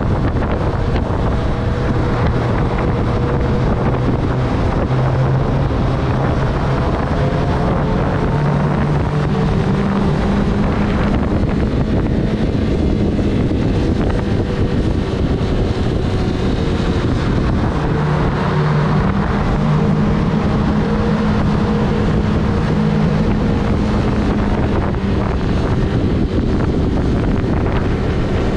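Sport motorcycle engine running at road speed, with heavy wind rush over the camera microphone. The engine note steps up and down a few times.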